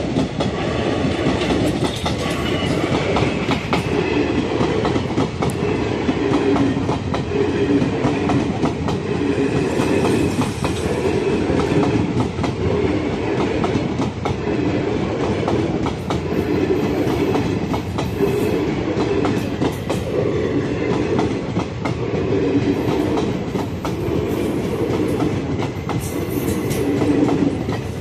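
Indian Railways express train's passenger coaches rolling past at close range: a continuous rumble with the wheels clattering over the rail joints in a repeating pulse.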